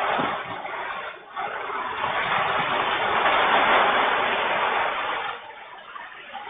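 Very strong wind with rain: a dense rushing noise that surges in gusts, easing briefly about a second in, building to its loudest midway and dropping off near the end.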